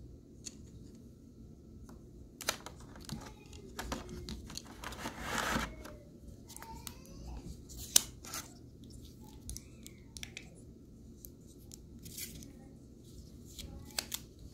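A plastic car phone mount and its moulded plastic packaging tray being handled, making scattered clicks, rattles and scrapes. There is a longer scrape about five seconds in and a single sharp click, the loudest sound, about eight seconds in.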